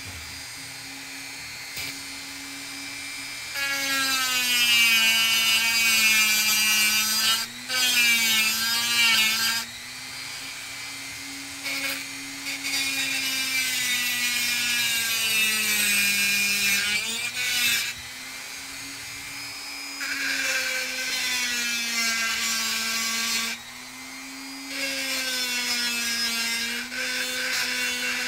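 Dremel rotary tool running at high speed with a hard bit, grinding a small metal part in four bursts of several seconds each. The motor's pitch sags each time the bit is pressed against the metal.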